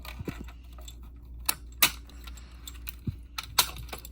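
Clicks, snaps and rattles of a fire alarm pull station being handled and pulled, with a few sharper snaps about a second and a half, two, and three and a half seconds in.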